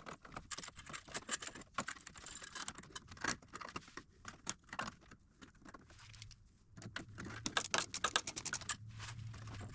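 Rapid, irregular clicking and tapping of hand tools and metal hardware while a coil-over remote reservoir is fastened to the truck frame. A faint low hum comes in about six seconds in.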